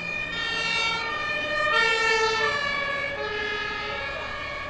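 Emergency vehicle sirens, several overlapping, holding tones and shifting pitch in steps. They swell to their loudest about two seconds in and then ease slightly.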